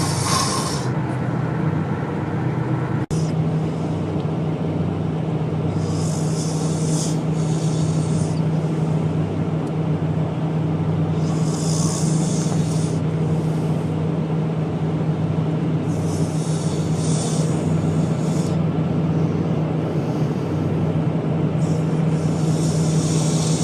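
A man snoring in his sleep: a hissing breath comes about every five to six seconds over a steady low hum.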